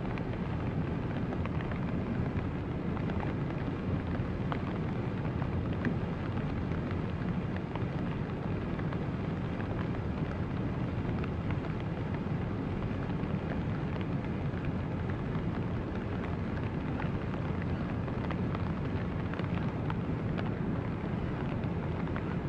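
River in spring ice drift: a steady noise of moving water, with faint scattered ticks.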